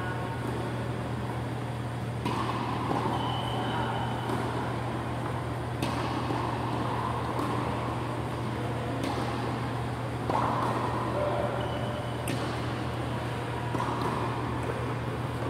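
Steady low hum and rushing of large wall-mounted ventilation fans, with a few sharp knocks a few seconds apart.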